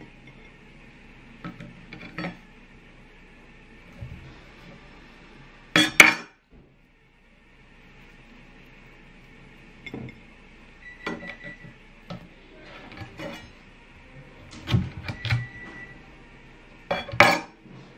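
Avocado being peeled and sliced with a chef's knife on a wooden cutting board, the slices set onto a ceramic plate: scattered taps, knocks and clinks. The loudest clatters come about six seconds in and near the end, and a brief stretch of near silence follows the first of them.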